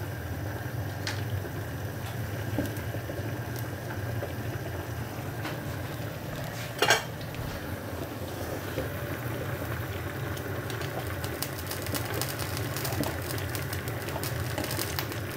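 Saucepan of hot water simmering on a gas hob over a steady low hum. About seven seconds in, metal tongs clank once against the pan, and near the end there is light, quick metallic clicking of the tongs working in the pan.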